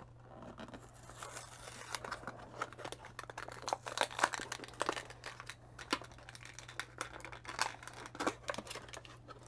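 A toy's cardboard-backed plastic blister pack being bent and pulled open by hand: a run of irregular crinkling and crackling of plastic and card, with a few sharper cracks.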